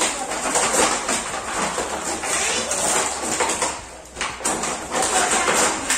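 Clear plastic packaging tray crackling and rattling as it is handled, with many small clicks and knocks of plastic pieces.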